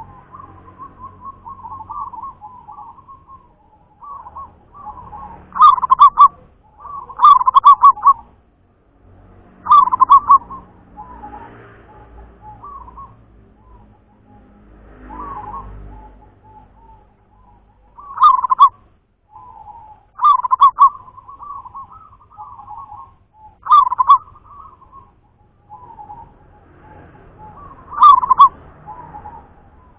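Zebra dove (perkutut) cooing: repeated phrases of quick, rolling coo notes at much the same pitch. About seven loud, accented phrases come a few seconds apart, with softer cooing between them.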